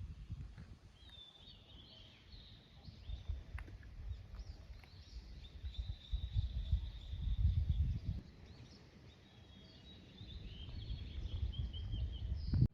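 Small birds chirping and calling with many short, high notes, over a low, uneven rumble that is strongest about six to eight seconds in.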